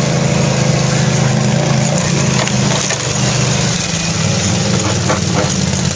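ATV engines running steadily as the quads ride over a rough dirt trail.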